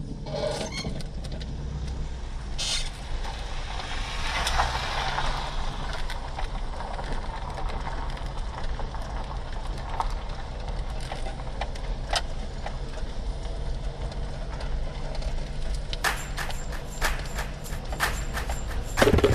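A car driving slowly on a dirt road, heard from inside the cabin: a steady low engine and tyre rumble with scattered clicks and rattles, which come more often near the end.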